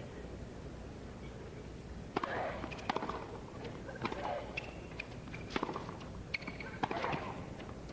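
Tennis rally: a run of sharp pops from rackets striking the ball and the ball bouncing on the hard court, beginning about two seconds in and coming roughly once a second.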